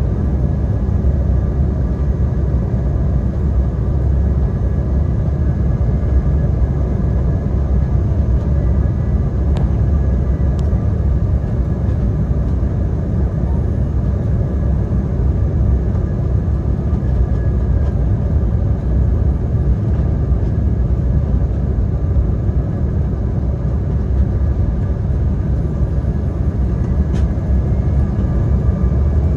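Steady cabin noise inside an Embraer E175 airliner at low altitude on its descent: an even low rumble of engines and airflow with a few faint steady whining tones above it.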